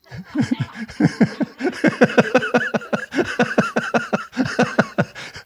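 Laughter, a steady run of quick ha-ha pulses lasting about five seconds, in answer to a joke.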